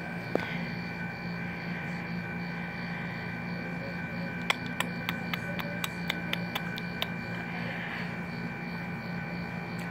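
Steady electrical hum, made of several constant tones, with a run of about ten short, faint clicks about halfway through.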